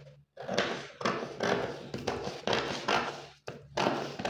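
Large fabric shears cutting through a paper sewing pattern: a steady run of snips, about two a second.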